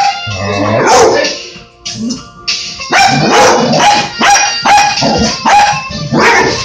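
Dog barking in short, sharp barks repeated over and over, several in quick succession from about three seconds in: excited play barking at a wand being waved.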